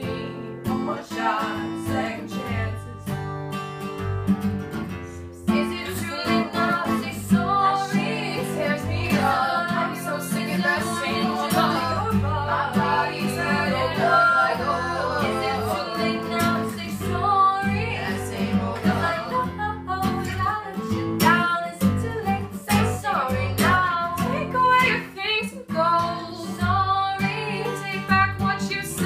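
Acoustic guitar strummed as accompaniment to several young women singing a pop song together, the singing growing fuller from about five seconds in.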